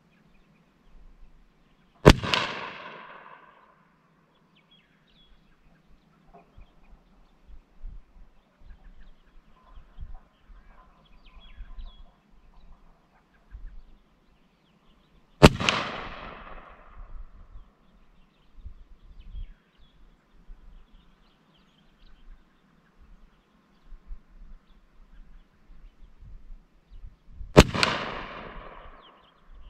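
Three shots from a Rossi Circuit Judge revolving-cylinder rifle in .45 Colt, spaced about twelve to thirteen seconds apart. Each is a sharp report that dies away over about a second.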